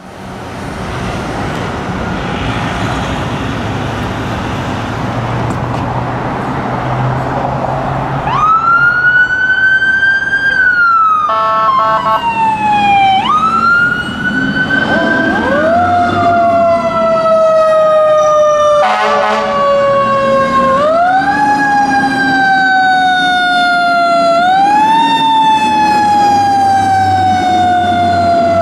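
Traffic and engine rumble, then from about eight seconds in, fire apparatus sirens: a siren winding up quickly and falling slowly, over and over, joined about halfway by a second siren at a lower pitch. Short horn blasts come in about a third of the way in and again near two-thirds.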